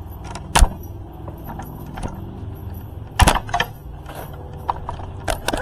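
A few sharp clicks and knocks of hard objects being handled, the loudest about half a second in and about three seconds in, over a steady low hum.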